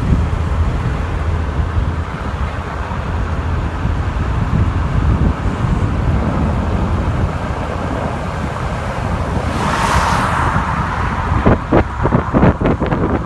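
Car interior road noise while driving: a steady low rumble with wind on the microphone, a swell of hiss about ten seconds in, and a few short sharp sounds in the last two seconds.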